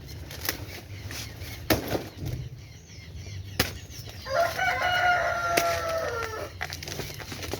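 A chicken's long drawn-out call, about two seconds long, fairly level in pitch and sagging at the end, preceded by a few soft clicks.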